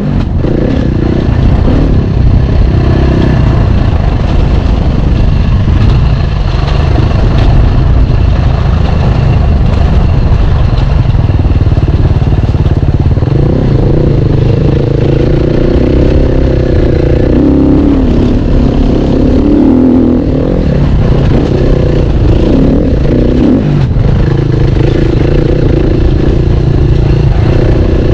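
Enduro dirt bike engine running hard along a rough trail, its pitch rising and falling as the throttle is worked. Rattling from the bike runs underneath, with a heavy rumble on the microphone.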